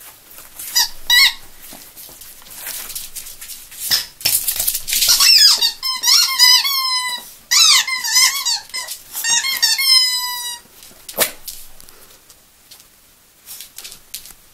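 A rubber squeaky dog toy being chewed by a Yorkshire terrier, squeaking over and over: two short squeaks about a second in, then a long run of squeaks from about four seconds to ten and a half seconds, each squeak sliding in pitch.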